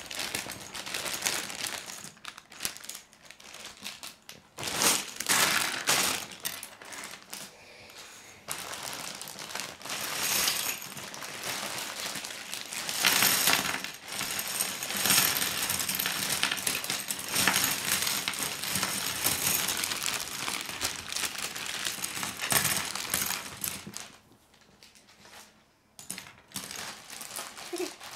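Hard plastic K'nex rods and connectors spilling out of a bag and clattering onto a heap of pieces on a wooden table, with the plastic bag crinkling. The clatter eases off briefly about three-quarters of the way through.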